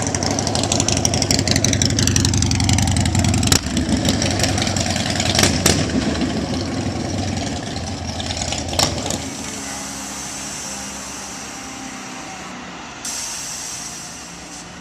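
Custom bagger motorcycle engine running and revved, its pitch falling as the revs drop, with a few sharp clicks. It settles to a quieter run from about nine seconds in.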